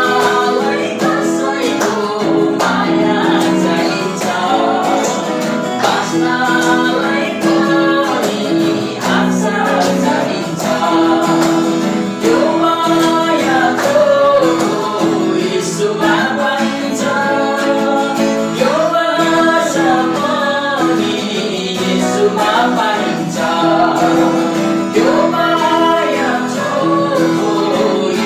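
A Nepali Christian worship song: a woman and a man singing together over strummed acoustic guitar and electronic keyboard.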